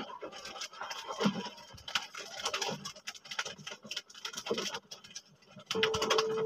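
A hand swishing and splashing through water and detergent powder in a metal tray, working up a lather, in uneven sloshes. A steady musical tone comes in near the end.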